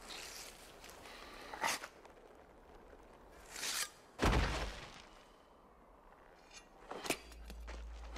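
Film sound effects: a brief swish, then a heavy dull thud of a body dropping onto sand about four seconds in, the loudest sound here. Sharp single knocks come before and after it, and a low steady hum sets in near the end.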